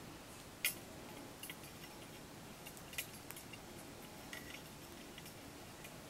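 Plastic gimp lace being woven into a lanyard stitch: faint scattered clicks and ticks as the strands are handled and pulled tight. The sharpest click comes about half a second in and another about three seconds in.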